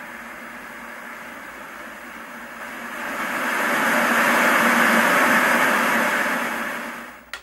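Static hiss from a Sony Trinitron KV-13M20 CRT TV's single front speaker, tuned to no signal. It swells loud as the volume is turned up, then falls away as it is turned back down, with a short click near the end.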